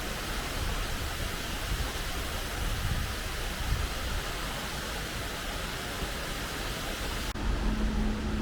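Steady rain falling, an even hiss. About seven seconds in, the hiss cuts off abruptly and a low, steady hum with a single held tone takes over.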